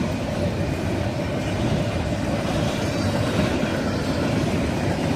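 Canadian Pacific intermodal freight train rolling past: steady noise of steel wheels on the rails as the cars go by.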